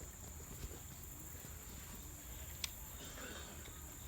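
Insects shrilling in a steady, high-pitched drone over a low rumble, with a single sharp click about two and a half seconds in.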